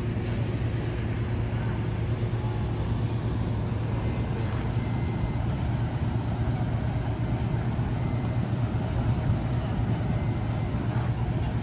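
Steady low hum of a mill plant's running machinery, even and unbroken.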